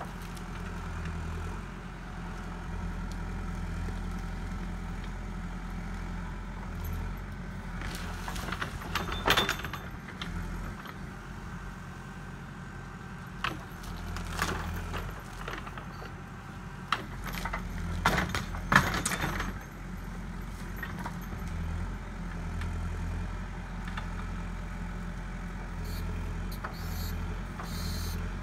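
Heavy earthmoving machine's diesel engine running steadily while it digs out mesquite roots and smooths the ground. Bursts of metal clanking and scraping come about a third of the way in, around halfway, and again about two-thirds through.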